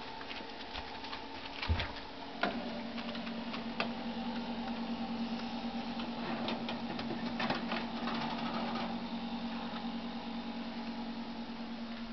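A steam oven's door and metal baking tray being handled, with scattered clicks and knocks; the sharpest are a thump just under two seconds in and a click about half a second later. With that click, a steady hum from the oven starts and runs on.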